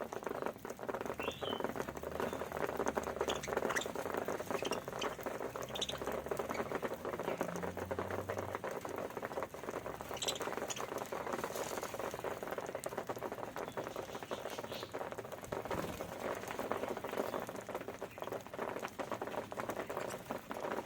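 Budgies pecking and cracking seed grain, a dense continuous crackling patter, with a few short chirps.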